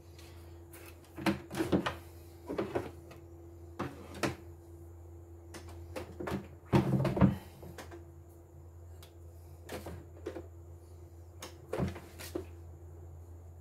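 Plastic parts of an embroidery machine knocking and sliding on a wooden workbench as the hoop and embroidery unit are taken off and the machine is shifted: scattered clunks and clicks, the loudest cluster about seven seconds in, over a steady low hum.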